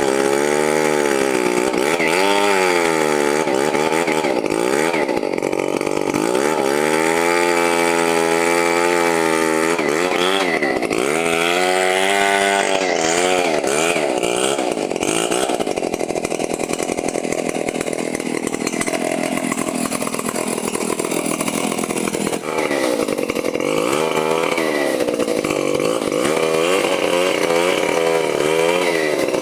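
Chainsaw running hard while cutting wood, its engine pitch rising and sagging over and over as the chain loads up in the cut and frees again.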